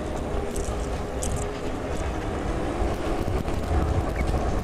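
Wind rumbling on the microphone while riding an e-bike, over steady road and tyre noise, with a couple of faint high ticks in the first second and a half.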